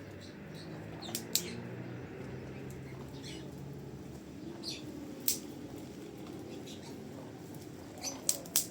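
Scattered short, high chirps of small birds, a few at a time, with several sharp clicks among them over a low, steady background.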